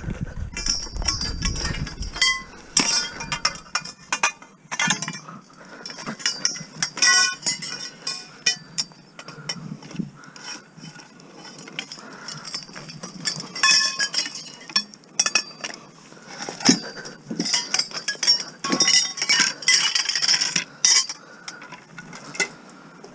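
Lengths of copper pipe clinking and knocking against each other as they are gathered up by hand: many irregular short metallic knocks, some ringing briefly.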